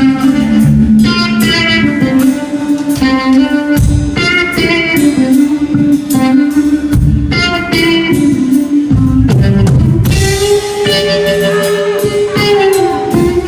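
Live blues-rock band playing: electric guitar holding sustained notes over a drum kit, without singing.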